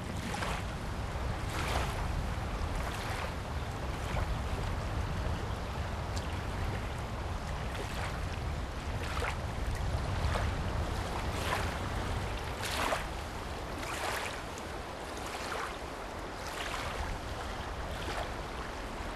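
Seashore ambience: a steady low rumble of wind on the microphone, with small waves washing against the rocks in short hissing swells at irregular intervals.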